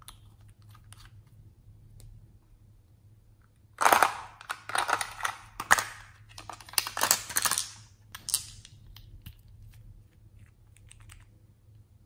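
Small hard-plastic toy case and its little nail-polish bottles being handled: a dense cluster of loud clicks and rattles over about four seconds in the middle, with faint light taps before and after.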